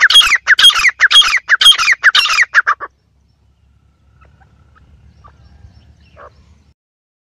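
Francolin (teetar) calling: a loud, rapid series of shrill falling notes, about three a second, that stops abruptly about three seconds in. After that only a faint low rumble remains.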